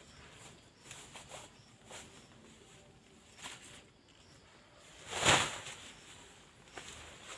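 Camping-gear handling while a tent is pitched: scattered light rustles and knocks, with one louder rustle lasting about half a second a little after five seconds in.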